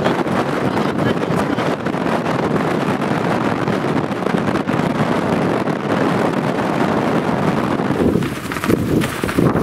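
Strong mountain wind buffeting the microphone: a loud, steady rushing noise, turning to a lower rumble near the end.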